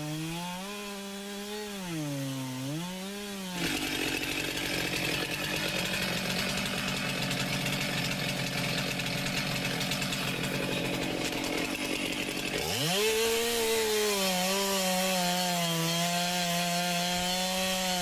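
Stihl MS 441 two-stroke chainsaw revving up and down, then a rough, rasping stretch. About 13 seconds in it climbs quickly to a steady full-throttle run as the chain cuts into a big maple log.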